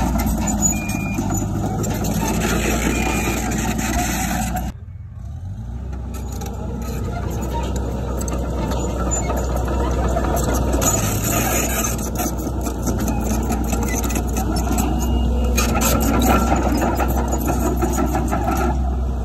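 Diesel engine of heavy earthmoving machinery running steadily under work. It drops off sharply about five seconds in and builds back up.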